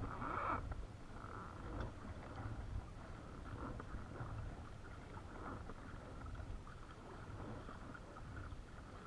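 Low wind rumble on the microphone with faint water sounds against a kayak's plastic hull, steady throughout.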